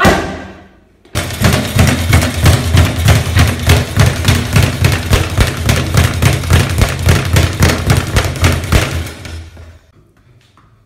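One gloved punch thumping into a wall-mounted punching pad. Then, about a second in, a speed bag being hit in a rapid, even rattle against its rebound platform for about eight seconds, fading out near the end.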